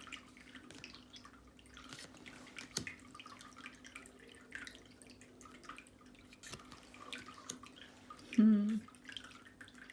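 Tarot cards being handled and laid down one by one: scattered light clicks and taps. A short hummed 'mm' about eight and a half seconds in is the loudest sound.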